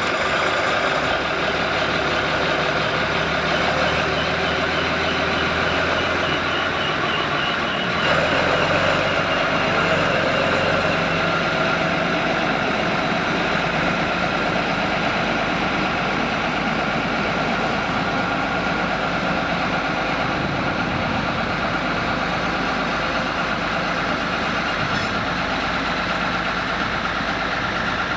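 Diesel railway engine running steadily, its note shifting about eight seconds in.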